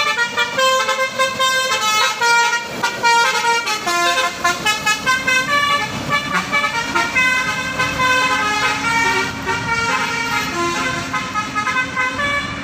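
Bus telolet horn, a multi-tone musical air horn, playing a quick tune of short stepped notes. It grows fainter toward the end as the bus departs.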